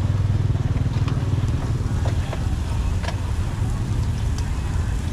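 Street traffic: a steady low engine rumble from motor vehicles, with a few faint light clicks scattered through it.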